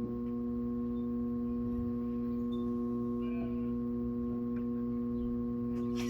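Midea window air conditioner giving a steady electrical hum of several pitches, its compressor failing to start.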